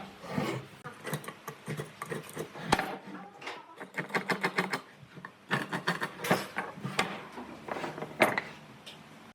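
Irregular knocks and clicks from hand work on wood, some coming in quick runs and a few sharper knocks standing out.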